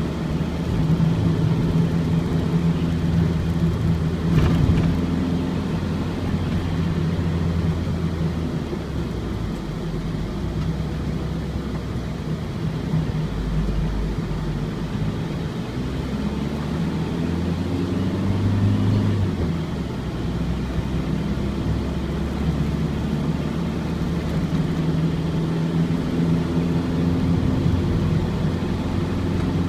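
Four-cylinder diesel engine of a Ford Transit van driving on the road, heard from inside the cab, with tyre and road noise. The engine note rises and falls several times as the speed changes. A brief knock comes about four seconds in.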